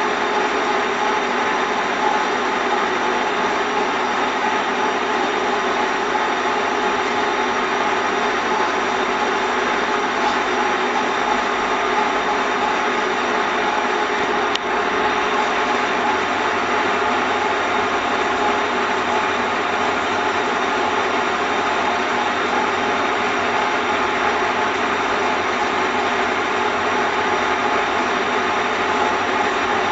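Desktop A3/A4 paper folding machine running steadily with its cross-fold unit, a continuous mechanical whir of motor and rollers.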